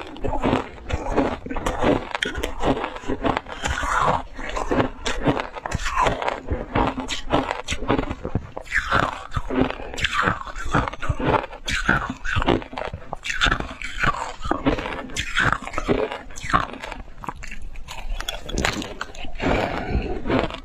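Shaved ice coated in milk powder being bitten and chewed in big mouthfuls close up: a dense, continuous run of crisp crunches.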